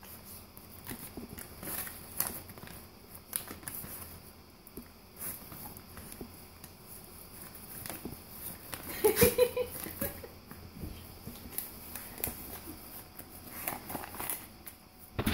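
A golden retriever tearing and crinkling newspaper coupon inserts with its teeth, in short uneven bursts of ripping and rustling paper. About nine seconds in, a short vocal sound is the loudest moment.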